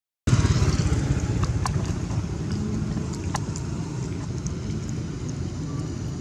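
Steady low rumble of a passing motor vehicle, easing off slightly, with a few faint clicks.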